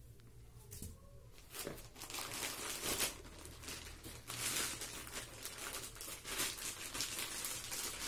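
Clear plastic wrapping crinkling and rustling in irregular bursts as it is handled, starting about a second and a half in.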